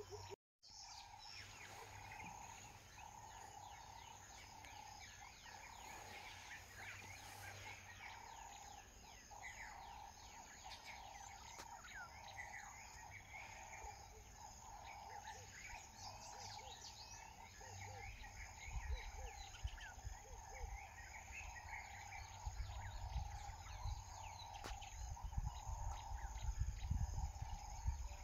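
Bush ambience: many birds calling in short chirps over a steady insect drone. The sound drops out for a moment just after the start. Low rumbling thumps build up in the second half.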